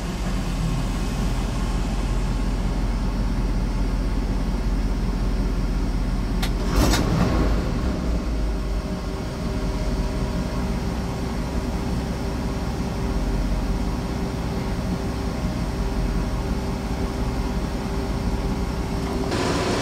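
Chrysler 361 big-block V8 in a Dodge D600 truck, its Carter BBD carburetor freshly rebuilt, idling steadily and smoothly ("purring"), heard from inside the cab. A short sharp knock about seven seconds in.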